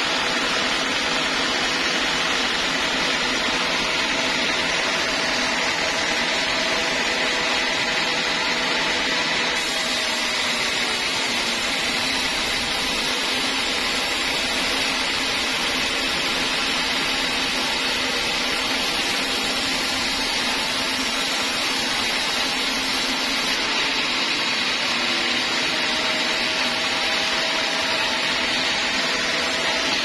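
Band sawmill running steadily: a continuous machine noise with a faint, steady high whine.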